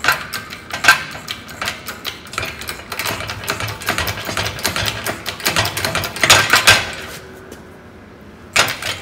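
Hydraulic shop press working a rusted propeller bolt out of its hub sleeve: a run of quick, irregular metallic clicks and clacks, with louder knocks about a second in and again around six and a half seconds, a short lull near the end, then more clatter.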